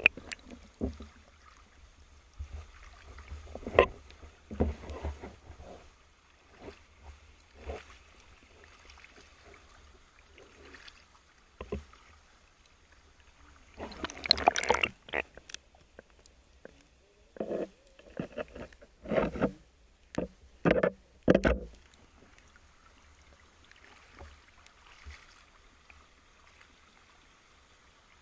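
Water sloshing and splashing around a swimming spearfisher in shallow water, in irregular bursts: a larger splash about halfway, then a quick run of four or five more.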